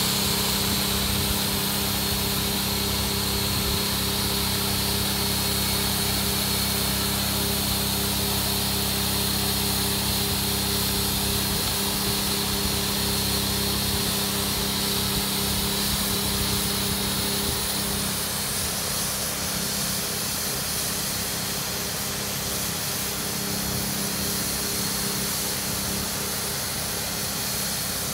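Electric inflation pump with its booster pump on, running steadily with a motor hum and rushing air as it fills an inflatable lounger toward its set pressure. The sound drops slightly in level about two-thirds of the way through.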